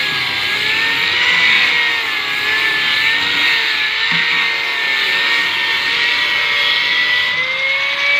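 Handheld electric grinder running continuously while worked over a sofa. Its high whine wavers slightly in pitch and rises near the end, over a steady grinding hiss.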